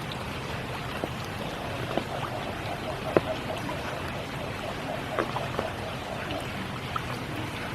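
Steady spring rain falling, with a handful of louder single drops landing close by at irregular moments.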